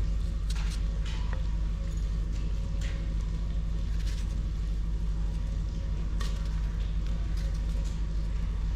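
A tomato being sliced by hand with a kitchen knife, pieces dropping into a clay bowl, heard as a few faint clicks over a steady low hum.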